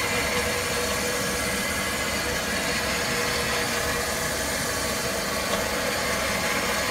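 Electric hoist motor on a ladder jack running steadily with a constant hum, lifting an air-conditioning condenser under load.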